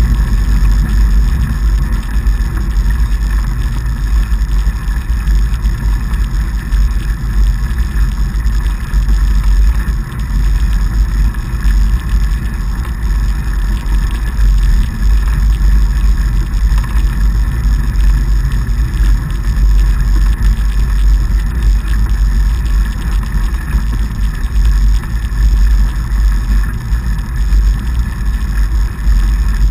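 Steady, loud low rumble of a fat bike riding over packed snow: the wide tyres rolling and wind hitting the bike-mounted action camera's microphone.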